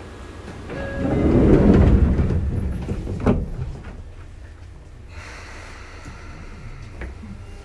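Sliding passenger doors of a Sotetsu 8000 series train working at a station stop. A rush of air swells about a second in and ends in a sharp knock, followed by the quieter hum of the stopped car.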